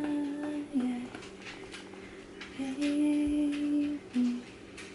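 A woman humming a slow tune. It comes as two long held notes, each dropping to a short lower note at its end.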